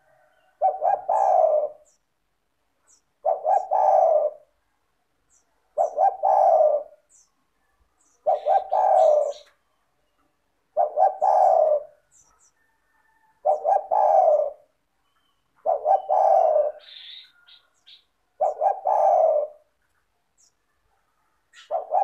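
Spotted dove (tekukur) cooing its multi-note song, the phrase repeated nine times about every two and a half seconds. Faint high chirps of small birds come in between.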